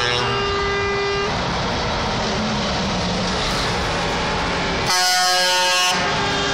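Trucks driving past with engine and tyre noise, their horns sounding. One horn stops about a second in. About five seconds in a loud truck horn blasts for about a second, with several tones at once.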